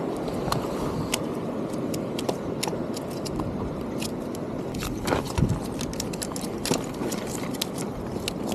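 Steady rushing of wind and surf on the jetty, with scattered small clicks and taps from handling fishing tackle and one heavier knock about five seconds in.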